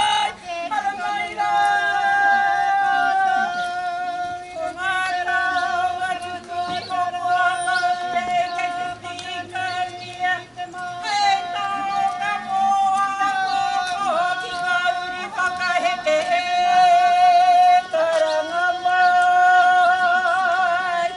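Karanga, the Māori ceremonial call of welcome: a woman's high voice holding long, slightly wavering notes on nearly one pitch, in phrases of several seconds with short breaks between them. A fainter, lower voice joins beneath at times.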